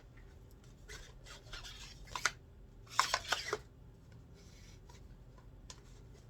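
Parts of a computer chair being handled during assembly: rubbing and rustling with scattered clicks, then a quick run of sharp plastic clicks and knocks about three seconds in.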